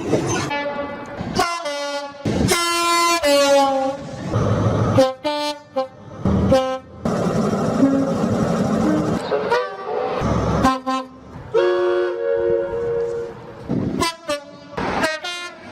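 A rapid series of British train horns, many short two-tone blasts at different pitches, each clip cut off abruptly and followed by the next. Train running noise rumbles between some of the blasts.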